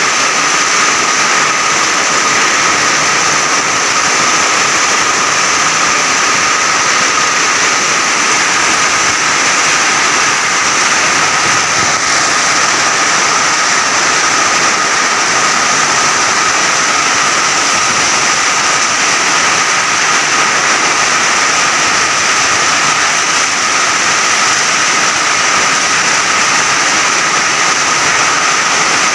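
Heavy, wind-driven tropical rain pouring down in a steady, dense rush, with no thunder. Two thin steady tones run underneath the rain.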